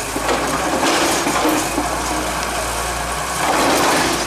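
Hydraulic excavator's diesel engine running steadily as its arm works against a concrete building's walls, with a noisy clatter over the low engine hum.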